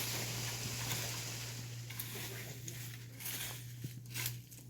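A steady hiss with scattered light crackles over a constant low hum. The hiss thins out near the end, leaving a few separate ticks and knocks.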